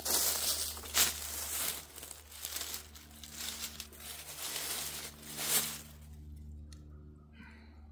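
Footsteps crunching and crackling through dry fallen leaves, then rustling and shuffling as a person sits down on a log; the crackling stops about six seconds in.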